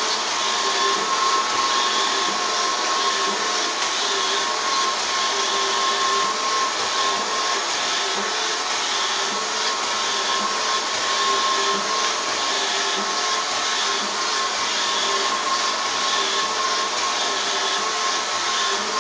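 Robot vacuum cleaner running steadily: a continuous motor whir with a steady high tone and faint regular swells about once a second.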